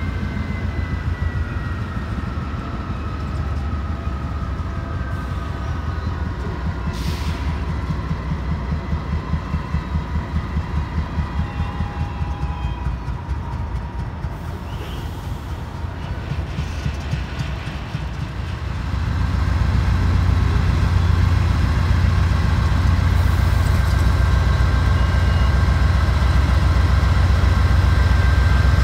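Canadian Pacific freight train's diesel locomotives rolling slowly past, a heavy engine rumble that swells to its loudest about two-thirds of the way through as the lead units draw alongside. Faint high-pitched squealing sounds in the first half.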